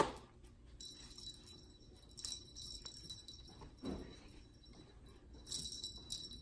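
Small jingle bell on a dangling cat toy jingling as a kitten bats at it, with brighter bursts about two seconds in and again near the end. A sharp click comes first, and a soft thump follows midway.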